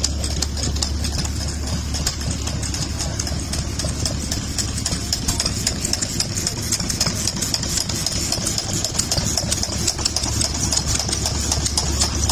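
Vintage stationary engines running at idle, with a steady low hum and many irregular sharp clicks.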